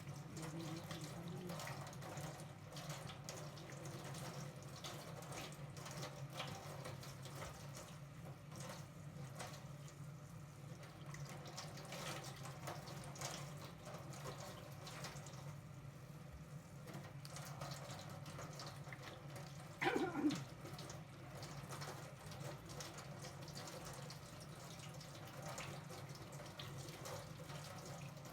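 Tap water running and splashing at a sink as oregano leaves are washed, with small drips and splashes over a steady low hum. About twenty seconds in, a brief falling squeak is the loudest sound.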